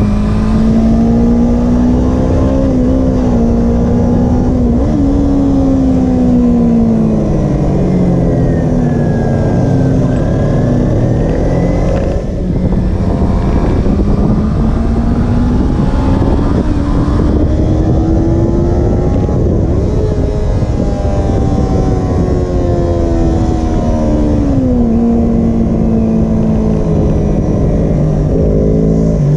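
Kawasaki Ninja 250R's parallel-twin engine running hard in third gear, heard close up from on board the bike. Its pitch climbs and falls as the throttle is opened and closed through the corners, with a brief dip about twelve seconds in and a sharp drop in pitch near the end.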